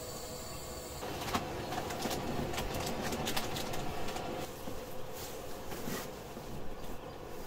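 Nylon tent fabric, a sleeping bag and an inflatable sleeping pad rustling and crinkling as someone kneels and moves about inside a tent, starting about a second in and easing off in the second half.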